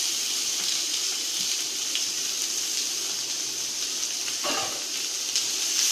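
Grated beetroot mix sizzling in hot coconut oil in a kadai as it is tipped in on top of the fried mustard seeds, shallots and curry leaves: a steady frying hiss.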